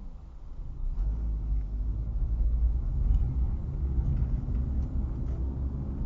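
Low rumble of a car driving on the road, growing louder about a second in and then holding steady.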